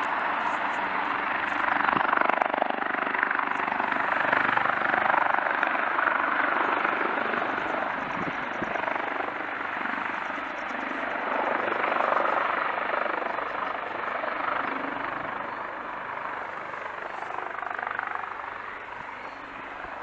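AgustaWestland AW149 twin-turbine helicopter descending to land, its rotor and engines making a loud, steady noise that swells a few times and grows quieter toward the end.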